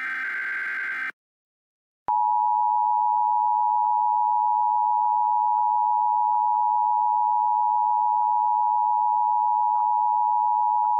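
Emergency Alert System broadcast signals: the last buzzing burst of the digital SAME header ends about a second in, and after a second of silence the steady EAS attention tone starts and holds.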